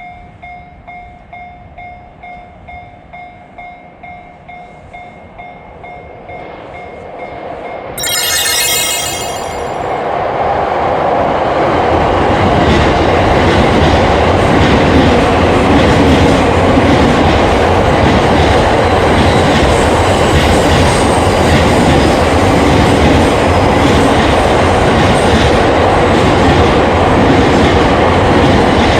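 Japanese railroad crossing bell ringing steadily, about two strikes a second. About eight seconds in there is a short sharp burst, and an electric Yokosuka Line train starts passing over the crossing, its wheels and cars rumbling loudly for the rest of the time.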